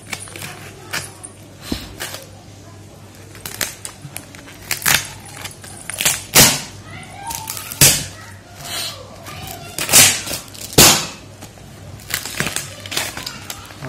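A parcel's taped brown paper and cardboard wrapping being cut with scissors and torn open by hand: a run of crinkles and scrapes, with several loud, sharp rips in the second half.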